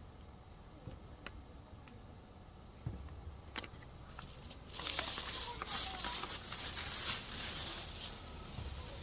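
Rustling and crinkling right at the microphone as a hand and a fleece sleeve move past the phone. It is loud for about three seconds from around the middle, after a few faint clicks.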